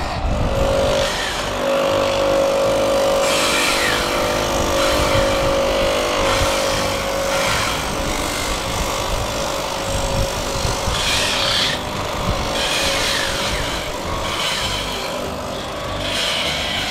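Electric motor spinning an abrasive wheel, with a cast aluminium pedal enclosure pressed against it in repeated passes. The grinding rises and falls over a steady motor hum. This is the rough cast surface being smoothed before polishing and chrome plating.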